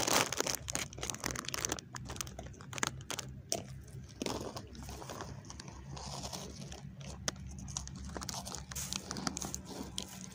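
Packaging crinkling and crackling as it is handled, with many irregular crunchy clicks throughout.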